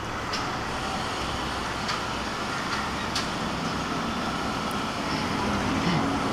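Steady background noise with a few faint clicks.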